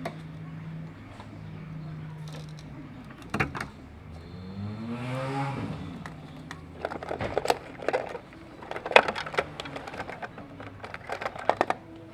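BMW 1 Series petrol engine idling with a steady low hum, revved up and back down once about five seconds in. Sharp clicks and knocks come in clusters through the second half, louder than the engine.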